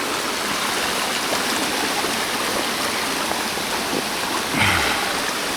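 Steady rush of a rain-swollen stream running high over small falls.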